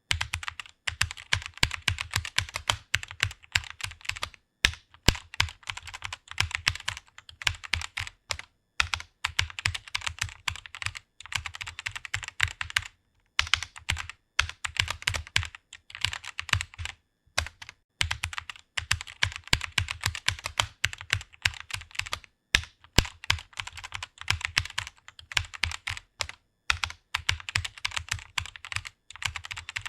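Fast typing on a computer keyboard: a continuous run of key clicks, broken by short pauses every few seconds.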